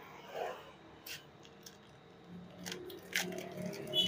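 Clear plastic packet of a new motorcycle cam chain crinkling and rustling in the hand, with a few sharp clicks, the loudest near the end.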